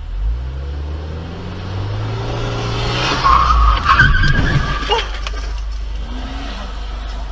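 A car's engine revving up as it pulls away, then a loud tyre squeal about three seconds in, followed by a few sharp knocks around four to five seconds in.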